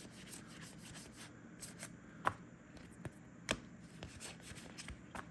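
Trading cards being handled and sorted by hand: soft rustling and sliding with scattered sharp taps, the two loudest about two and three and a half seconds in.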